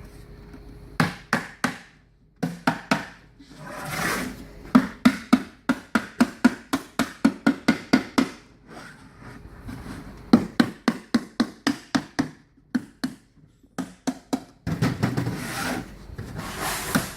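Hammer tapping the interlocking corner joints of a wooden beehive super box to seat them tight, in runs of sharp knocks, about three a second at the fastest. Short stretches of wood rubbing and scraping come between the runs.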